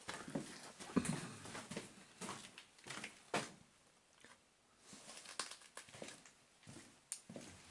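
Footsteps scuffing and crunching on a gritty floor, in an irregular run of steps that goes quieter for a moment about halfway through.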